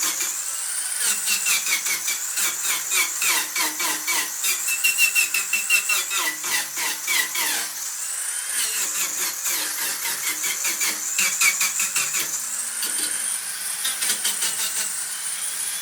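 Mini angle grinder with a carving disc shaping wood. The motor's high whine sags when the cutter bites into the wood and climbs back when it eases off, with rapid chattering of the cutter against the wood in two long spells.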